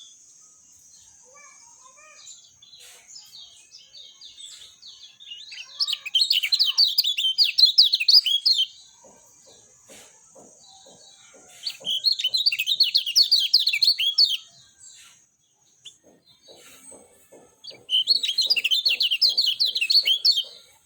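Lemon-bellied white-eye (kecial kuning) singing three bouts of rapid, high twittering chirps, each about three seconds long, with softer scattered notes in the pauses between them.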